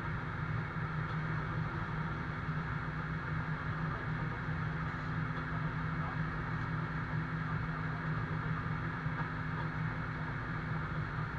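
Diesel engine of an Iveco GCBA 10/32 fire engine running steadily at constant speed, driving its fire pump to supply a hose that sprays water.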